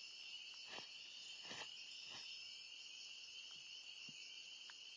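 Night-time chorus of crickets trilling steadily, with a few faint soft clicks in the first couple of seconds.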